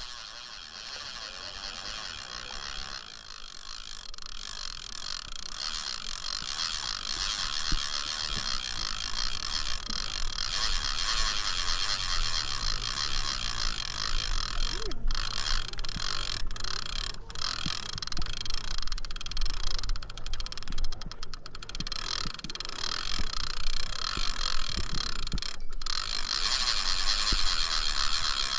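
Fishing reel's clicker ratcheting rapidly and without a break as a running fish pulls line off the reel. It gets louder over the first several seconds.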